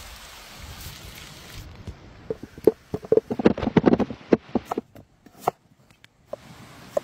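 A soft steady hiss, then whole potatoes dropping and rolling onto a wooden board in a quick flurry of hollow knocks, followed by a few single knocks as a knife cuts into a potato on the board.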